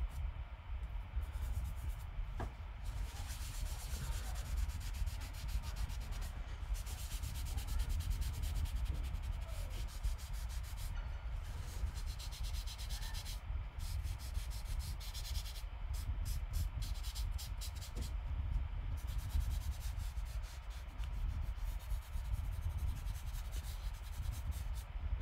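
Charcoal scrubbed back and forth on drawing paper in quick strokes, coming in spells with short pauses, laying down an even layer of shading. A low rumble runs underneath.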